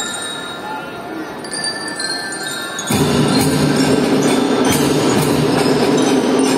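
Children's marching drum band: about three seconds of bell-like ringing tones, then the full band comes in suddenly and loudly with drums and sustained melody notes.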